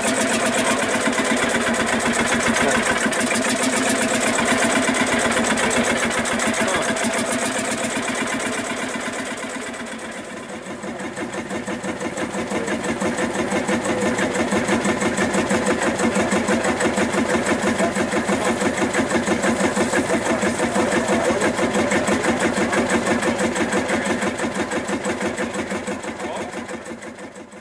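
Field Marshall tractor's single-cylinder two-stroke diesel, freshly started by a shotgun cartridge, running at idle with a rapid, even beat. It dips in loudness about ten seconds in, then runs steady again and fades out at the end.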